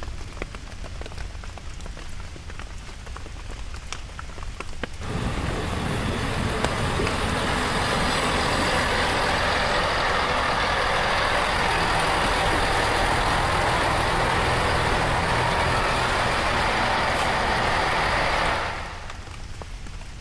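Diesel multiple-unit passenger train running past the station platform: a loud, steady rush of engine and wheel noise that starts abruptly about five seconds in and cuts off shortly before the end. Before it there is only a quieter low rumble with a few clicks.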